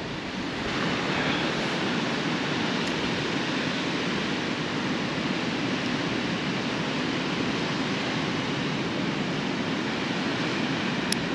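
Steady rushing of surf and wind, an even unbroken noise with no distinct waves or gusts standing out.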